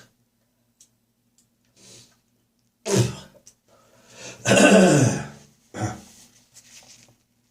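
A person's heavy morning cough, bringing up phlegm. There is a sharp cough about three seconds in, then a longer, loudest throat-clearing hack whose pitch falls, then another short cough about six seconds in.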